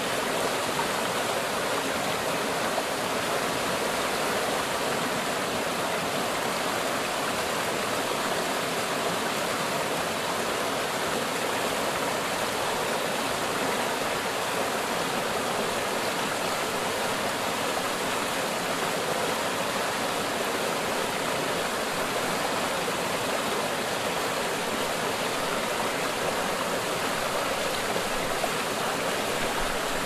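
Small waterfall pouring between boulders into a pool, a steady rush of falling and splashing water.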